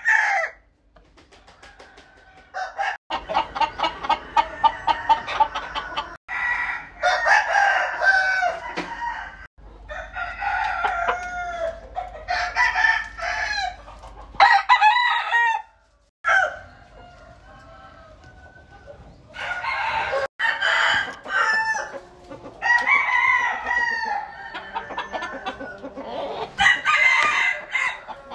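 Roosters, bantam and Vietnamese fighting cocks, crowing one after another in a long series of loud crows a few seconds each, with quieter gaps between bouts.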